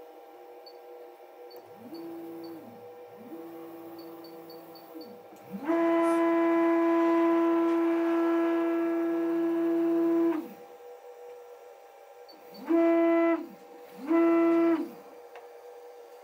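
Stepper motors of a belt-driven CNC router driving the gantry through five moves. Each move is a steady buzzing tone that rises in pitch as the motor speeds up and falls as it stops. The long middle move lasts about five seconds and is loudest, and two short loud moves come near the end. A faint steady hum sits underneath.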